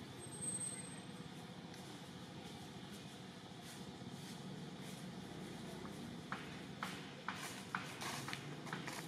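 Quiet outdoor background with a steady low hum, a brief high thin whistle about half a second in, and a run of sharp light clicks and rustles in the last three seconds.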